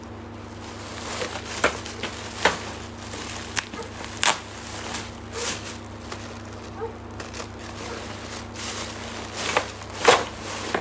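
Packaging crinkling and rustling as baby-rocker parts are unpacked and handled, with irregular sharp clicks and knocks; the loudest crackle comes about ten seconds in.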